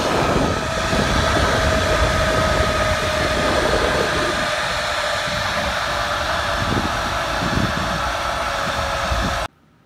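Aerial cable car ride: a steady rush of air and running machinery with a faint held whine, and wind rumbling on the microphone. It cuts off abruptly near the end.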